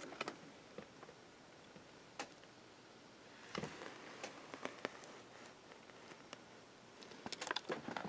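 Faint scattered crackles and clicks over a low hiss, bunching into quick runs about three and a half seconds in and again near the end.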